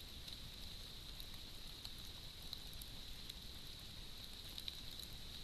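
Faint, steady background hiss from a trail camera's microphone, with a thin high-pitched tone running through it and a few light ticks.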